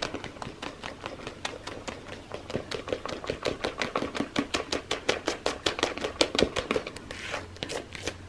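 A spoon tapping and scraping quickly against a plastic mixing bowl while stirring a thick, foamy white henna and soap paste, at about five strokes a second.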